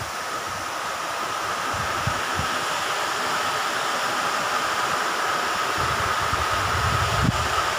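Steady rush of water pouring through a canal sluice gate, with a steady high hum over it. From about six seconds in, wind buffets the microphone.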